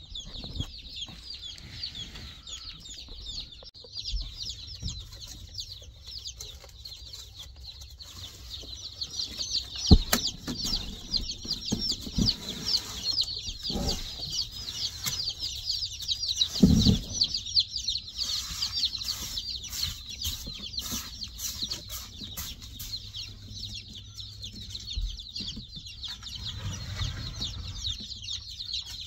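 A large batch of newly shipped baby chicks peeping nonstop from their cardboard shipping boxes, many short high calls overlapping. A couple of sharp knocks stand out, about ten seconds in and a louder one near seventeen seconds.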